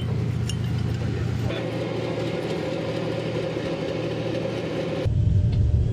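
A vehicle engine running steadily, broken by abrupt cuts: a low rumble, then about a second and a half in a steadier mechanical drone, then a louder low rumble again near the end.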